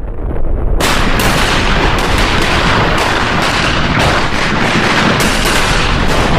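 Loud, continuous explosive roar with repeated sharp blasts, about one or two a second, rising abruptly about a second in: the sound of a volcanic eruption.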